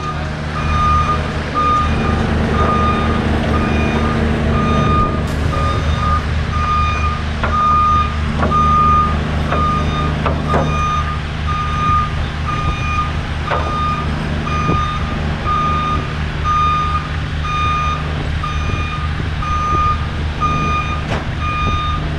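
Backup alarm on a construction machine beeping steadily about once a second over its engine running, with a few short knocks and clanks.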